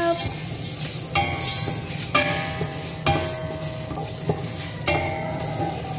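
Wooden spatula stirring unpopped popcorn kernels in hot oil in a stainless steel pot, scraping and rattling the kernels across the metal while the oil sizzles; the kernels are still heating and have not begun to pop. A few brief ringing notes from the steel pot come with some of the strokes.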